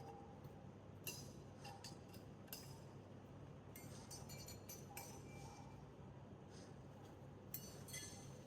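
Faint, scattered metallic clinks and clicks from a hand tool and screws as a plate is tightened onto a metal trolley frame.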